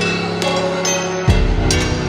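Background music with sustained chords, percussion hits and a deep bass note coming in about a second and a quarter in.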